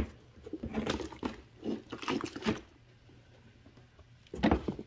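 Hey Dude canvas shoe being pushed down into a bucket of OxiClean solution: wet squishing and sloshing in a few short, irregular spells, a pause, then more near the end.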